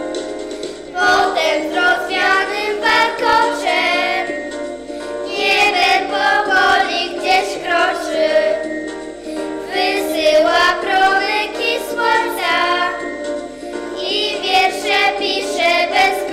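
A children's song: a group of children singing with keyboard accompaniment, the voices coming in about a second in and going on in phrases with short breaths between them.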